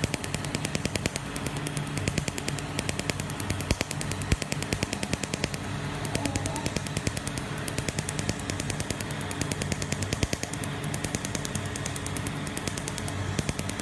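Tattoo removal laser firing a rapid, even train of sharp snaps, each one a pulse striking the inked skin, which turns white and frosted under it. A steady low hum from the laser unit runs underneath.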